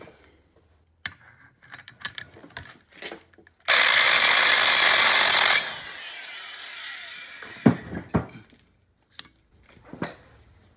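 Valve seat grinder's driver running a stone on a cast-iron engine head's valve seat for about two seconds, then switched off and spinning down. A few knocks follow as the tool is handled.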